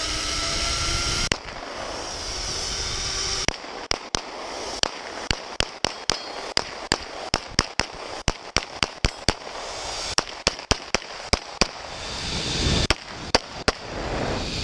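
Gunfire: a string of sharp, separate gunshots, about two or three a second at uneven spacing, starting a few seconds in and stopping shortly before the end, with one lone shot earlier, over a steady background hiss.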